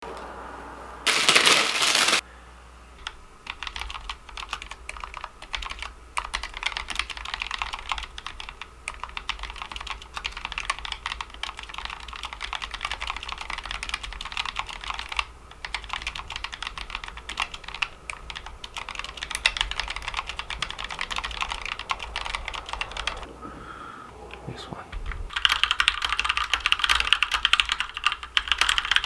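Fast typing on a Keychron mechanical keyboard with Gateron Red linear switches: a rapid, continuous clatter of key presses. There is a loud burst of noise about a second in, a short pause near the end, and then the typing comes back louder.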